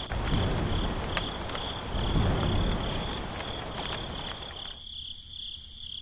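Crickets chirping in a steady pulsing rhythm over the hiss of rain. The rain noise cuts off suddenly near the end, leaving only the chirping.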